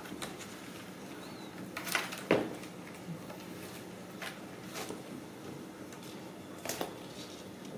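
Scattered knocks and scuffles of kittens playing on cardboard scratchers and a tile floor. The loudest is a sharp knock about two seconds in, with another cluster near the end.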